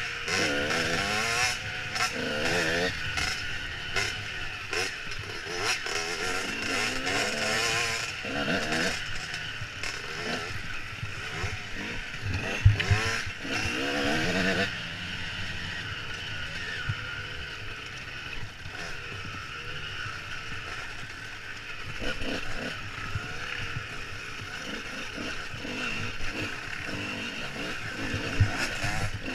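Dirt bike engine revving up and down through the throttle as the bike rides over rough trail, heard from a helmet-mounted camera, with one sharp thump about twelve seconds in. The revving settles to a steadier drone in the second half.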